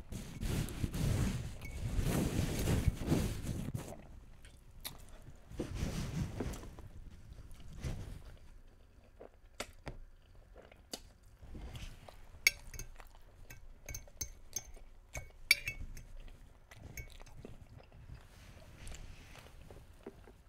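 Close-miked chewing of pasta for the first few seconds, then a metal fork clinking and scraping against a glass baking dish, a scattering of sharp clicks over the second half with softer chewing between them.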